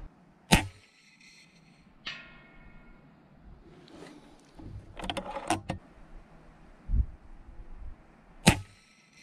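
Two shots from an FX Impact Mk3 PCP air rifle, each a sharp crack, about eight seconds apart. About a second and a half after the first comes the faint ring of the steel plate being hit at 232 m. Between the shots there are clicks and rattles of the rifle's action being worked, and a dull thump.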